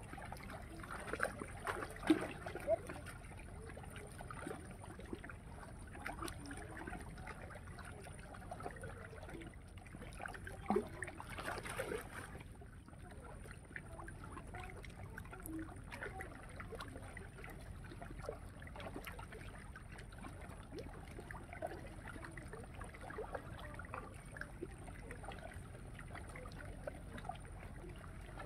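Faint outdoor ambience: a low steady hiss with small scattered clicks and knocks, a slightly louder rustle about eleven seconds in, and a thin, high steady tone above it all.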